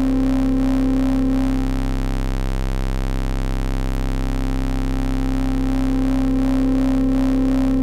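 Synthesizer drone: a Moog Werkstatt-01's pulse-wave oscillator and a Eurorack oscillator's sawtooth mixed into the Werkstatt's ladder filter, holding one steady low note with an even wavering beat between the two oscillators. No filter feedback yet, but the builder hears saturation in the filter.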